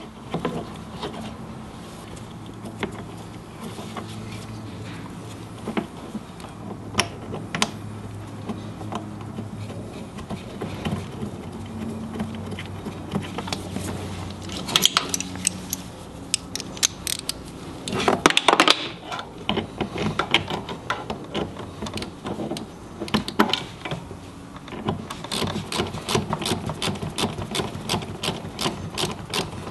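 Ratchet wrench with a 10 mm socket clicking in quick runs as the ignitor's mounting bolts are tightened, with scattered clinks and knocks of tools and metal parts. The longest, steadiest run of clicks comes near the end, over a faint low hum early on.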